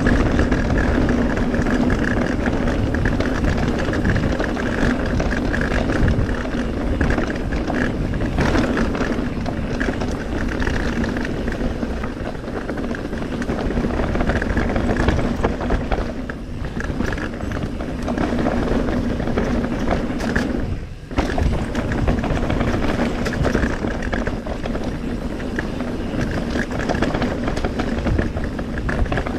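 Mountain bike ridden down a rough trail, heard from a chest-mounted camera: continuous tyre roar and rattling of the bike over the ground, with a steady buzz running under it and a short lull about two-thirds of the way through.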